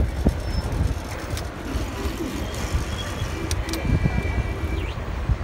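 City street traffic noise heard from a moving electric bike, with a dense, uneven low rumble throughout. A few sharp clicks and a faint, brief high tone come about three and a half seconds in.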